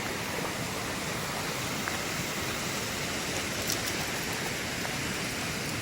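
Rain-swollen mountain stream rushing over small waterfalls: a steady, unbroken rush of water.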